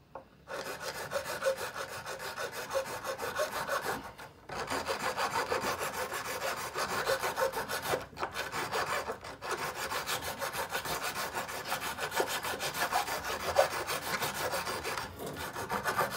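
A hacksaw blade sawing through the plastic motor mount of a twin-tub washer in quick back-and-forth scraping strokes, with short pauses about four, eight and nine seconds in. The mount is being cut down to bring the drive belt level with the pulley so the belt stops slipping off.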